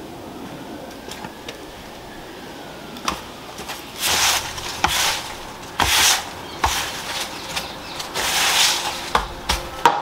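Irregular scraping and rustling strokes, a dozen or so from about three seconds in, as clippings and debris are cleared by hand off stone paving.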